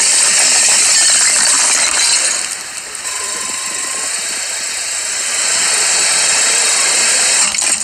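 Dense crackling and crunching as a car tyre rolls slowly over small objects on asphalt, crushing a clay pot of sweets and then pressing onto a plastic maraca, with the car's engine running underneath. The noise drops briefly about two seconds in.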